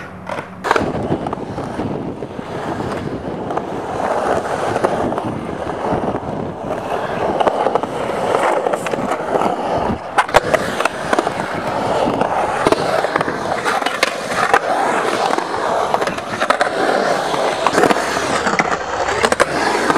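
Skateboard wheels rolling over concrete ramps and bowl walls in a steady rumble, with a few sharp clacks of the board and trucks striking the concrete.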